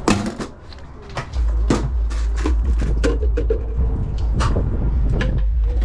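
Metal tongs and a ladle clicking and clacking against the stainless steel steam-table pans and lids of a hot dog cart, many short knocks in an irregular run. A steady low rumble sets in about a second and a half in.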